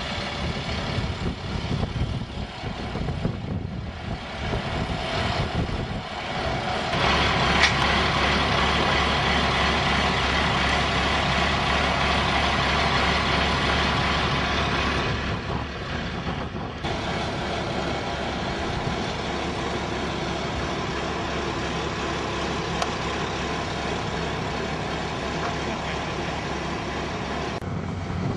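A heavy vehicle's engine running steadily, with a steady low hum that grows louder about seven seconds in and eases a little about halfway through.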